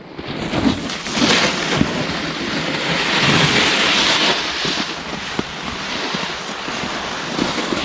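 Rushing wind on the microphone and the hiss of a snowboard sliding over snow while riding, swelling about three to four and a half seconds in.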